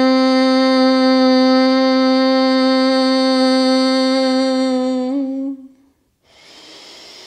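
A woman's long, steady, closed-mouth hum on one pitch: bhramari (bumblebee) breath exhaled through the nose. It wavers and stops about five and a half seconds in. After a brief silence comes a quieter, long breath drawn in through the nose.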